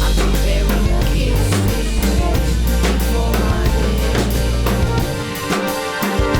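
Outro music with a drum-kit beat and a heavy bass line; the bass drops out about five seconds in.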